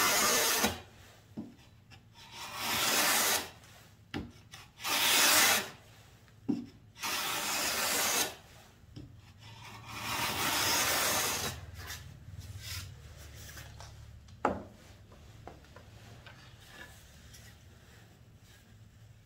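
Homemade wooden gypsum-board planer shaving the edge of a gypsum board on its thin-cut setting, in strokes of a second or two each: one ends just after the start and four more follow, with a few sharp knocks between them. The strokes stop after about twelve seconds, leaving only one more faint knock.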